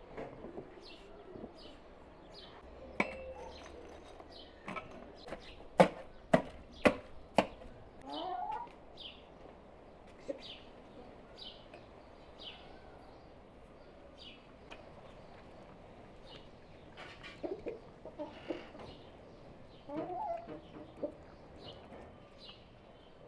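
Chickens clucking, with a short high chirp repeating about once a second and, a few seconds in, four sharp knocks about half a second apart.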